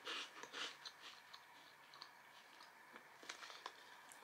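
Faint chewing of a crunchy corn puff snack ball, with soft crunches in the first second, then a few faint clicks about three seconds in.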